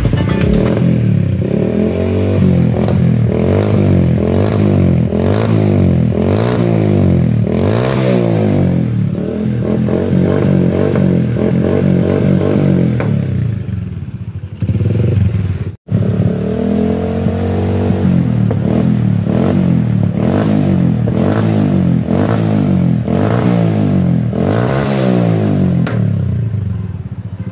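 Honda Blade motorcycle's single-cylinder four-stroke engine revved again and again through a freshly built straight-through 'neutral' exhaust, pitch rising and falling with each blip of the throttle. It breaks off for a moment past the middle, then the revving goes on. The uploader says the carburettor setting is not quite right.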